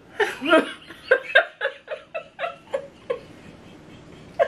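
High-pitched laughter: a run of short giggling 'ha' pulses, about four a second, dying away about three seconds in.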